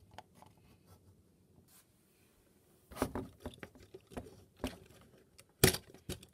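Plastic clicks and snaps from a Transformers Siege Ultra Magnus action figure as its parts are moved and pushed together by hand. A few faint ticks at first, then a run of short clicks from about three seconds in, the sharpest near the end.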